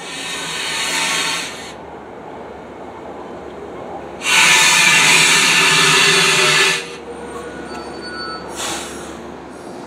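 Metro-North push-pull commuter train passing close by. Three loud bursts of hiss sit over a steady rumble: one at the start, the longest and loudest about four seconds in lasting over two seconds, and a short one near the end.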